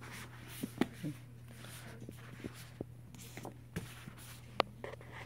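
Paperback books being handled and slid into a stack on carpet: scattered soft taps and rustles, with one sharper tap about four and a half seconds in, over a steady low hum.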